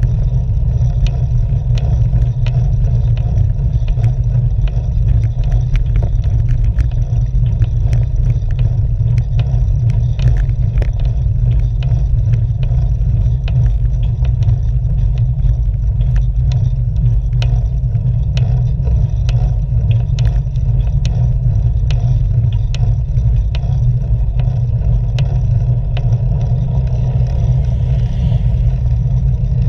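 Wind buffeting and road rumble on a road bike's handlebar-mounted action camera while riding: a steady low rumble with frequent small clicks and rattles from the mount.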